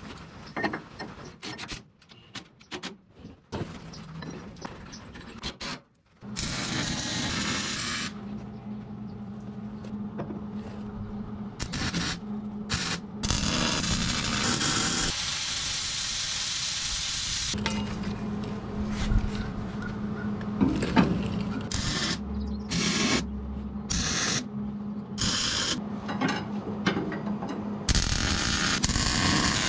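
Wire-feed welder laying beads on steel: a steady frying crackle with a low hum, broken into several runs by short stops. For the first few seconds there is only quieter, intermittent handling of the steel parts.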